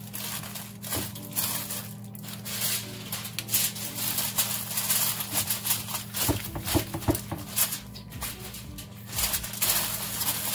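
Wax paper and then aluminium foil crinkling and rustling in irregular crackles as hands press and crimp them down over a pan. A steady low hum runs underneath.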